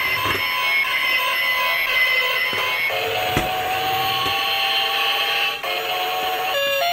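Dickie Toys City Liner battery toy tram driving by itself and playing an electronic sound effect through its small speaker: a loud, steady electronic drone with several held tones. The tones change about three seconds in, and a short run of stepped beeps comes near the end.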